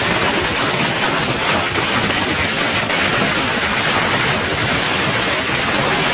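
A long string of firecrackers exploding in a rapid, continuous crackle of bangs.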